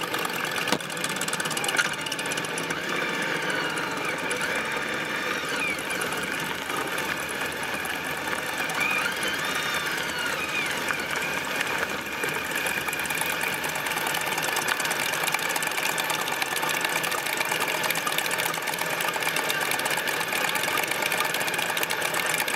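Several Harley-Davidson V-twin motorcycles idling together, a steady engine sound with no revving.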